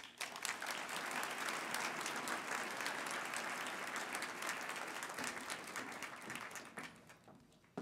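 A seated audience applauding, a steady patter of many hands that dies away near the end.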